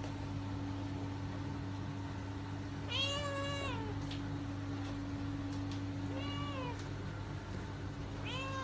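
A cream flat-faced kitten meowing three times: a long meow about three seconds in, a shorter one around six seconds, and another starting near the end. A steady low hum runs underneath.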